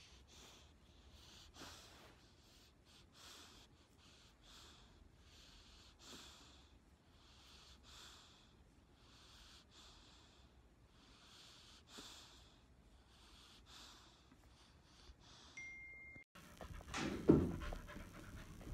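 Soft, regular breathing close to the microphone, a faint breath about every second. Near the end a short beep, then louder knocks and movement noise.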